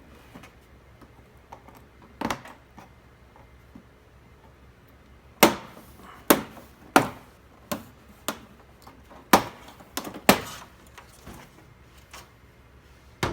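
A series of about ten sharp clicks and knocks from the plastic parts of an LCD TV being pried and snapped apart, coming irregularly and closest together about midway.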